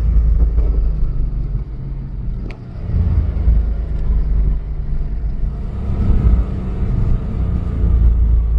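Car engines and tyre rumble heard from inside a following car on a twisting road: a deep, loud rumble that swells and dips with the throttle through the bends.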